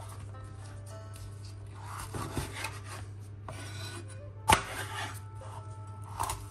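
Chef's knife cutting through bell peppers on a wooden cutting board: crisp slicing and scraping strokes, with a sharp knock of the blade striking the board about four and a half seconds in.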